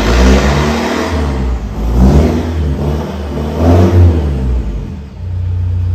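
Toyota Hilux Vigo's 2KD four-cylinder turbo-diesel revved three times, about two seconds apart, settling back to idle between revs. It exhausts through a straight pipe with an HKS muffler held against the tailpipe to try its sound.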